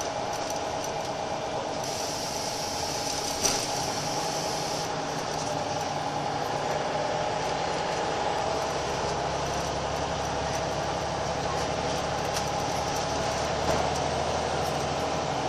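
Cabin noise of a Scania L94UB Wright Solar single-deck bus: its five-cylinder 9-litre Scania engine drones steadily under the floor, with body and fitting rattles. The low engine note strengthens about halfway through, and there is a knock about three and a half seconds in and another near the end.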